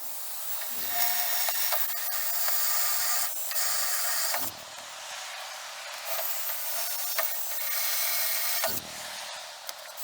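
Power tool running in long stretches with two short breaks, a dense hiss with a few sharp ticks.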